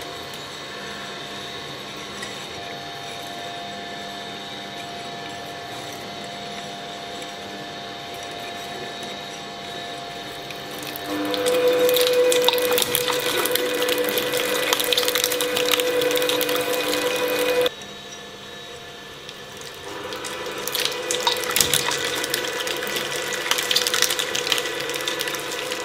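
Twin-shaft shredder running with a steady hum, then about eleven seconds in its hooked cutters grab a rubbery, gel-filled Stretch Armstrong toy: the machine turns much louder, with a strong steady tone under dense crackling and squelching as the skin and gel are torn. The noise drops off suddenly about two-thirds in, then the crackling shredding rises again near the end.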